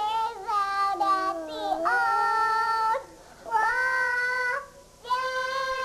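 Small children singing long, drawn-out notes into a toy microphone. There are three held notes with short breaks between them, and the first wavers up and down in pitch.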